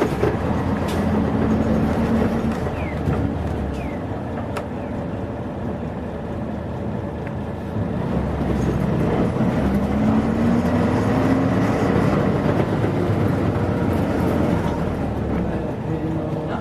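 Mitsubishi P-MP218M bus's V8 diesel engine heard while riding. It runs under load at first and eases to a quieter stretch. About eight seconds in it accelerates with a rising engine pitch, holds, and drops back near the end.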